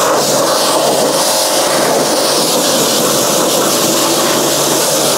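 Pressure washer running steadily: a constant motor hum under the hiss of the water jet blasting grime off a car's rear suspension.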